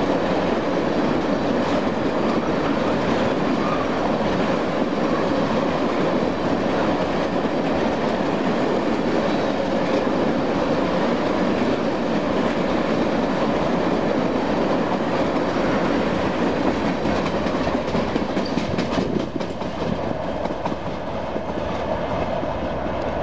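Freight train of tank cars rolling past close by: steady noise of steel wheels running on the rails. It grows quieter near the end as the last car passes and moves away.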